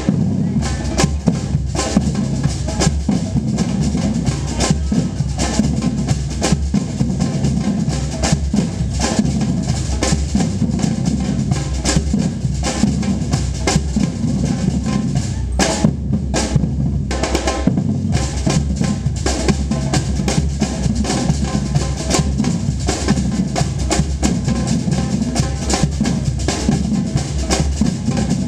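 Batucada samba percussion band playing a steady, driving groove of bass drums and snare drums.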